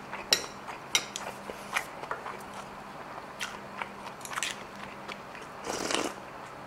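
A person chewing food up close, with small clicks and taps of utensils throughout, then a slurp of soup from a bowl near the end.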